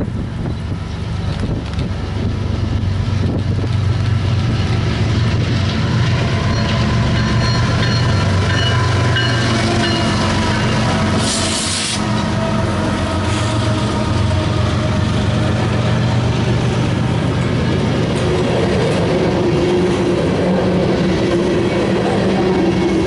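Two CN GE ES44AC diesel locomotives approach and pass close by, their engines running, getting louder over the first few seconds. A long train of covered hopper cars follows, steel wheels rolling and clacking over the rails. There is a short burst of hiss about halfway through.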